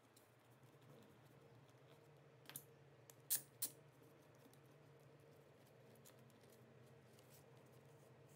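Small sharp clicks of steel F-style bar clamps being set on a glued plywood assembly: a light click, then two louder ones about a third of a second apart, over a faint low hum.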